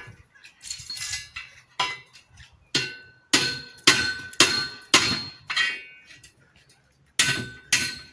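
Hammer blows, about nine sharp strikes roughly half a second apart with a short pause before the last two, each leaving a brief metallic ring, as when nailing bird-cage parts together.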